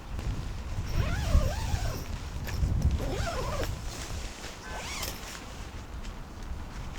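Wind buffeting the microphone in a steady low rumble, with three arching calls from an animal, each rising and then falling in pitch.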